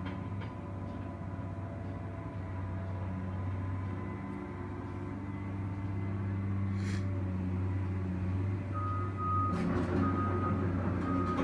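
Caterpillar tracked excavator's diesel engine running steadily. A backup alarm starts beeping about once a second near the end, and there is a single sharp click about midway.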